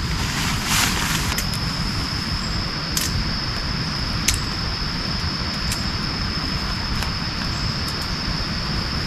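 Forest ambience: a steady low rushing noise with a thin, high, steady insect drone that comes in about a second and a half in, and a few scattered sharp ticks.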